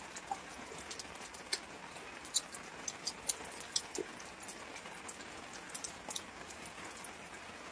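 Scattered faint, sharp clicks and ticks, irregular and about one or two a second, over a faint steady hiss.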